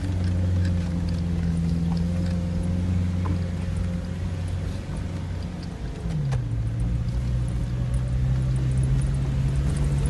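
Vehicle engine running steadily, with scattered light knocks and rattles. About six seconds in, the engine note drops in pitch and then holds steady at the lower note.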